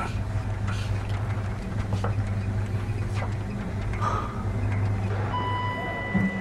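A vehicle running with a low steady hum and a few brief knocks. Near the end a steady electronic beep sounds for about a second.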